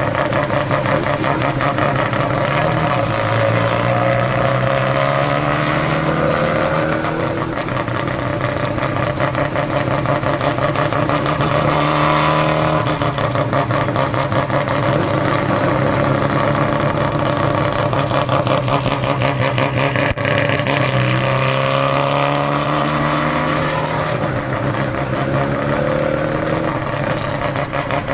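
Peripheral-ported Mazda 13B rotary engine running at low speed as the car cruises, its revs rising briefly a few times, about three seconds in, around twelve seconds and again about twenty-one seconds in.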